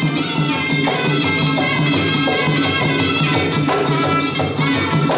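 Traditional Khmer boxing fight music: a reedy wind melody that bends and slides in pitch, over a steady drum beat, played throughout the bout.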